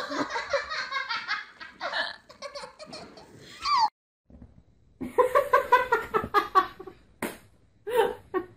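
People laughing, in two bouts with a short gap about four seconds in.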